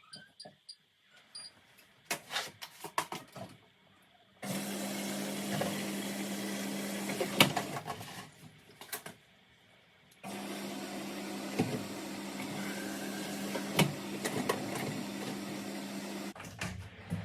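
Vacuum cleaner switched on and run in two stretches of a few seconds each, with a steady motor hum; it cuts in and out abruptly. A few clicks and knocks come before it starts.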